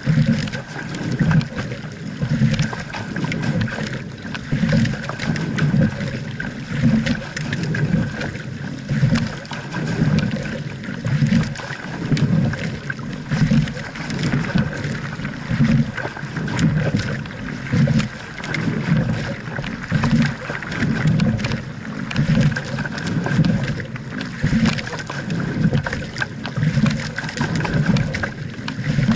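Water rushing past the hull of a double sculling shell under way. The sound swells and eases in a regular surge about every two seconds, in time with the rowing strokes.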